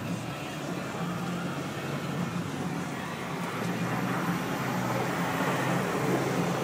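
Pickup truck engine running as it slides and spins its tires through mud, heard from inside another vehicle with its own engine's steady low hum underneath; the noise grows a little louder in the second half.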